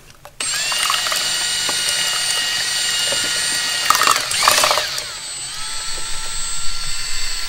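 Electric drill with a mixing paddle starting up suddenly and running at speed, stirring freshly combined two-part expanding foam in a plastic cup. Its whine holds steady, with a brief rattle of the paddle around four seconds in, and then drops a little in pitch.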